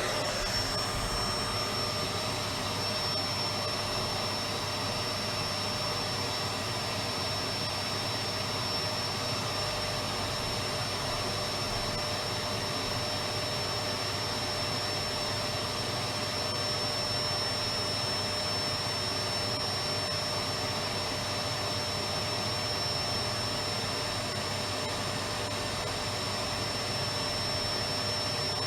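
Electric vacuum cleaner running steadily: a constant rushing of air with a steady high whine from the motor, unchanging throughout.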